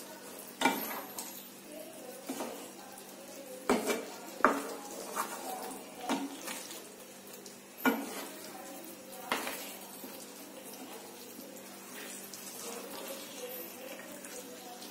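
Wooden spatula scraping and knocking against a nonstick kadai as masala gravy is spooned over boiled eggs, with the gravy sizzling faintly as it simmers. The knocks come irregularly, about seven of them, and stop about ten seconds in, leaving only the soft sizzle.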